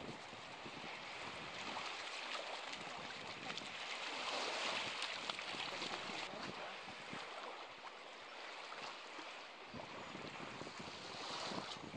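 Steady outdoor hiss of wind and small lake waves lapping at the shore.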